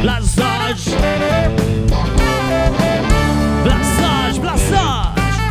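Live funk band playing, with drums, bass, electric guitar, trumpet and saxophone.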